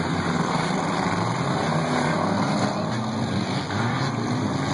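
Engines of figure-8 race cars running at speed as the cars lap the track, a steady, loud mix of several engines.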